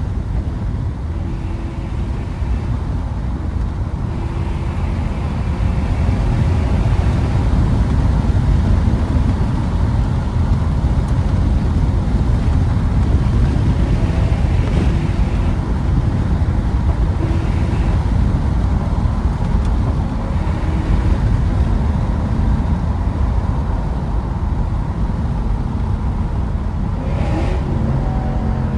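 Lexus GS430's 4.3-litre V8 running with its catalytic converters removed, pulling steadily under way: a loud, low, continuous exhaust note mixed with road noise.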